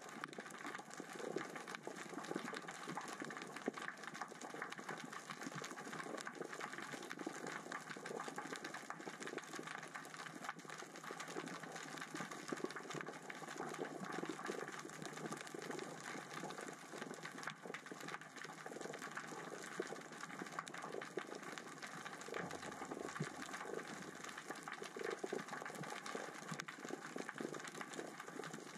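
Underwater, small rocks rolling across the sea floor in the current and tide: a steady, dense crackle of many small clicks.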